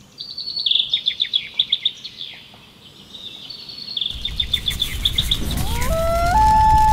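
Songbirds chirping in rapid high trills. From about four seconds in a campfire crackles, and near the end a common loon's wail rises and then holds on a long steady note.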